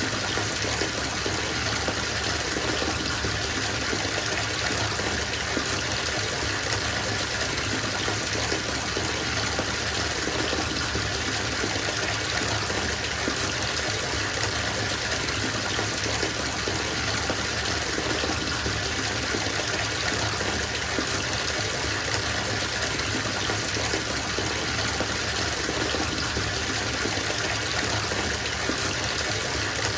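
Water running from a bathtub tap into a filling tub: a steady, even gushing rush with no change.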